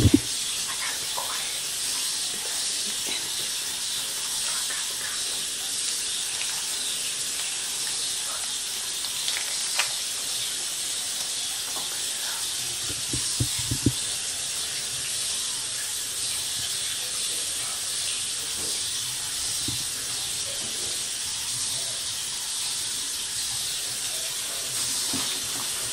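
Steady hiss throughout, with a few faint taps and knocks about ten and fourteen seconds in.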